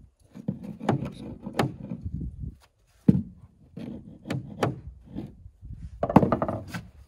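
Irregular wooden knocks and rubbing as 2x4 framing lumber is handled and fitted into place at the bottom plate of a stud wall, the loudest knock a little after six seconds.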